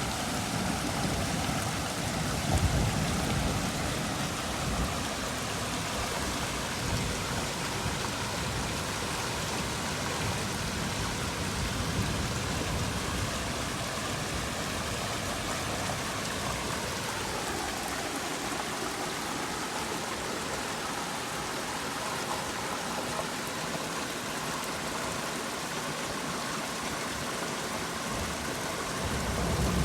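Heavy rain falling steadily, an even hiss of drops, with bouts of low rumble during the first half.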